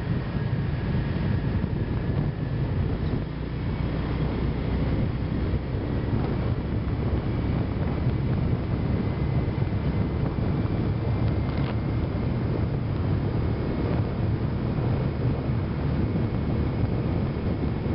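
Steady low rumble of a car driving along a paved road, with wind buffeting the microphone.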